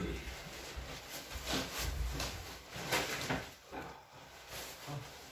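A person turning over on a folding massage table: a string of soft rustles and shifting creaks from the table and its paper cover.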